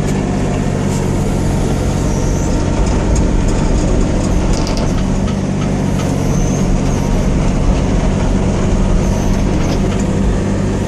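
Hitachi ZX35U mini excavator's diesel engine running steadily while its hydraulics are worked, with a few faint hisses and ticks over the engine.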